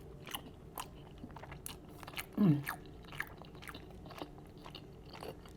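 Close-up chewing of chewy rice cakes and spicy noodles: an irregular run of wet mouth clicks and smacks. About two and a half seconds in comes a short falling hum from the eater.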